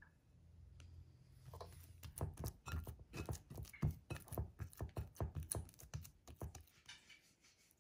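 A hand kneading oiled bread dough in a glass bowl: a quick, irregular run of soft squishes and taps, several a second. It starts about a second and a half in and stops about a second before the end.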